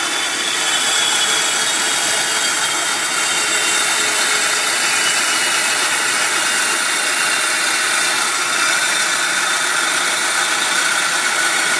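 Inland diamond band saw running steadily, its diamond blade grinding slowly through the glass of a wine bottle, with faint steady high tones over the grinding noise.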